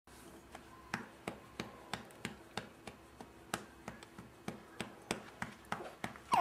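A hand patting a baby's back steadily, about three soft pats a second, to bring up a burp.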